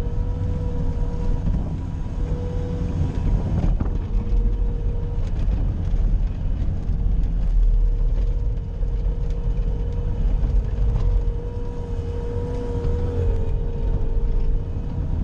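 Bobcat skid-steer loader running steadily, heard from inside the cab: a low engine drone with a steady whine over it.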